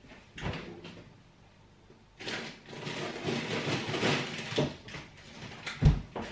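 A freezer being opened and rummaged in: a knock, then rustling and clattering of frozen packets, and a heavy thump near the end.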